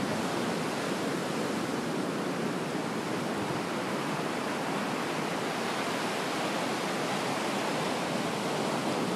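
Steady, even wash of ocean surf.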